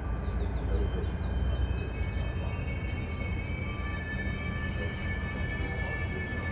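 Diesel locomotives idling on the service tracks: a steady low rumble with a constant high whine over it.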